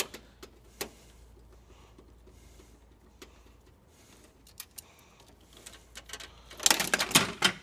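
Light, scattered clicks of a screwdriver working a screw in the copier's metal frame, over a low hum. Near the end comes a loud burst of rattling clatter as the loosened plastic-and-metal part is handled.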